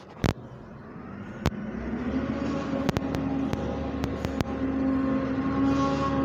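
Diesel engine of a backhoe loader running steadily, growing louder and rising slightly in pitch about two seconds in. A sharp click comes just after the start, with a few lighter clicks over the next few seconds.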